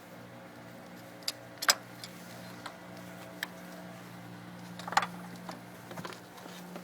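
Sharp clicks and light clinks of small parts and tools being handled while a motorcycle starter relay is taken apart, over a steady low hum. The loudest clicks come at about a second and a half and about five seconds in.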